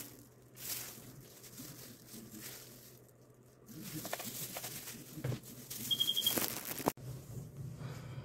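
Faint handling noises: scattered clicks and rustles over a low steady hum, with a quick run of about five short high beeps about six seconds in.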